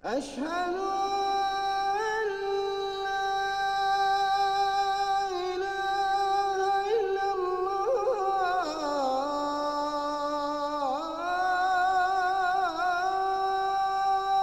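A single voice chanting long, held notes with wavering ornaments on the turns, a devotional melody without words spoken.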